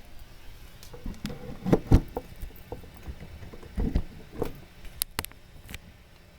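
Sparse, loose drum hits: a few low, resonant thuds about two seconds apart, then sharp stick-like clicks about five seconds in.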